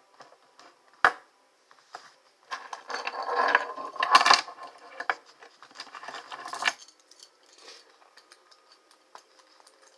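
Metal handcuffs clinking and jangling as they are handled: a sharp click about a second in, then a run of rattling from about two and a half to seven seconds in, loudest around four seconds, and a few faint ticks after.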